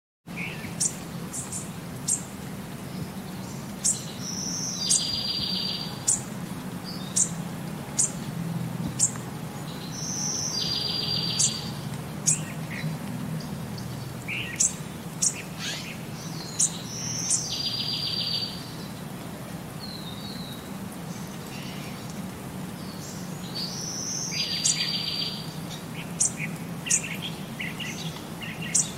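Birds chirping: short high chirps scattered throughout, and a buzzy trilled call about a second long that repeats roughly every six seconds, over a low steady hum.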